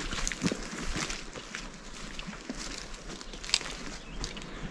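Footsteps through forest-floor leaf litter and ferns, with irregular crackles of twigs and brushed undergrowth and one sharper crack about three and a half seconds in.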